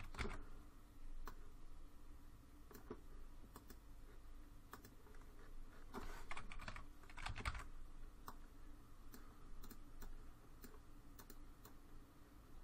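Faint computer keyboard keystrokes: scattered single key clicks, with a couple of short quick runs about six and seven and a half seconds in, as lines are pasted and nudged with shortcut and arrow keys.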